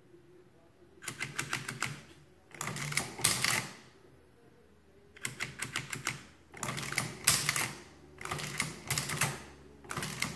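Sundstrand mechanical adding machine, hand-cranked through about six cycles: each cycle is a burst of rapid clattering clicks from the mechanism and printer, about a second long, with short quiet gaps between. This is a test run after repair, and the machine is adding and printing correctly.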